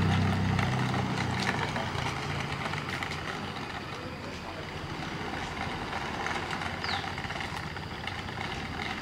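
A low engine hum that fades away over the first two or three seconds, over a steady rough, gritty noise that carries on throughout.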